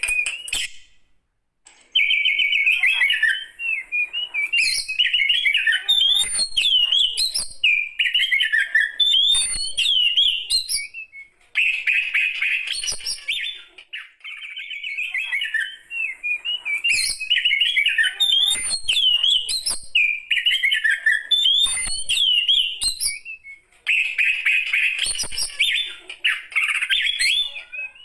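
An old Oriental magpie-robin (kacer) singing: loud bouts of varied whistled, gliding and chattering phrases, broken by short pauses of a second or two.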